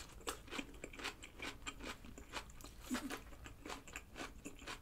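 A person chewing a mouthful of hamburger close to the microphone: soft, irregular mouth clicks and crunches, a few each second.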